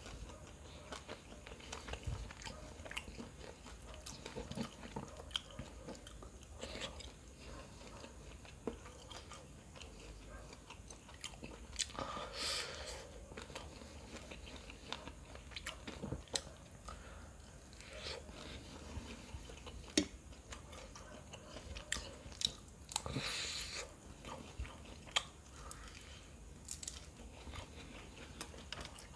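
Close-up eating sounds: biting, chewing and crunching of fried devilled fish and noodles, with scattered sharp clicks and two longer, louder spells of crunching, one about midway and one about three-quarters through.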